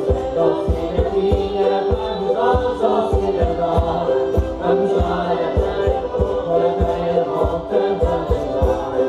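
Madeiran folk music playing for the dance: a group singing together over a steady low beat of about two strokes a second.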